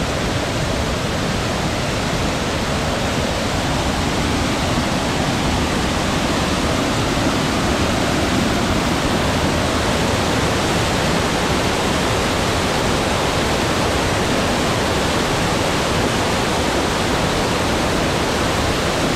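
Waterfall cascading over rocks: a steady, even rush of whitewater.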